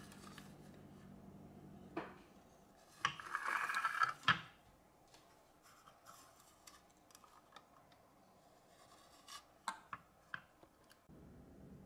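Faint handling noise from a loudspeaker crossover board and its wires being turned over in the hand: light clicks and ticks, with a short rubbing scuffle about three to four seconds in and a few sharp ticks near the end.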